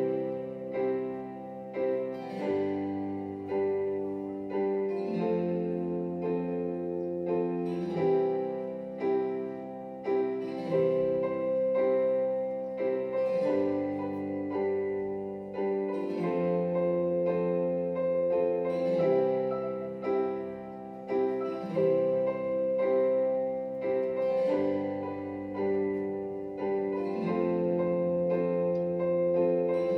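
Instrumental piano music: held notes and chords in a short phrase that repeats about every three seconds.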